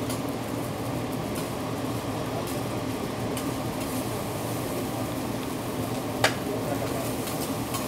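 Food sizzling on a hibachi teppanyaki griddle over a steady ventilation hum, with light taps of the chef's metal spatula and one sharp clink a little after six seconds in.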